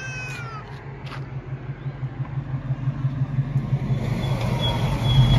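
The exhaust of a 1988 Chevrolet Caprice Brougham idling with a low, pulsing rumble that grows louder near the end. A brief falling chirp sounds right at the start.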